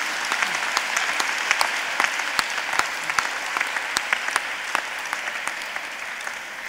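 Many people applauding together, fading near the end.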